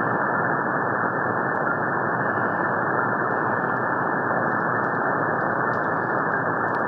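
Steady shortwave radio hiss and static from an SDR receiver tuned around 3236 kHz, cut off sharply above about 2 kHz by the receiver's narrow filter.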